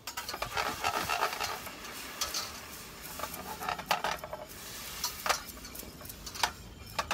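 Wire whisk scraping and clinking against a stainless steel pot while whisking a maple syrup and jerk sauce glaze: a quick, continuous run of scrapes with several sharper clinks in the second half.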